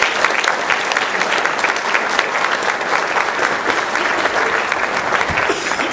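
Audience applauding, many hands clapping in a dense, steady stream.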